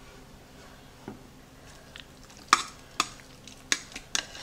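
Metal tongs clicking and knocking against a Crock-Pot's stoneware insert as a seared chuck roast is set into it: a soft knock about a second in, then four sharp clicks over the last two seconds.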